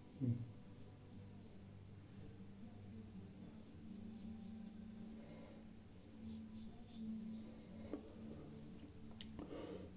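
Japanese straight razor scraping through lather and stubble: runs of short, crisp rasping strokes, a few a second, with pauses between the runs. A low thump sounds right at the start.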